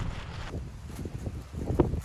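Wind buffeting the microphone: an uneven low rumble that swells in stronger gusts near the end.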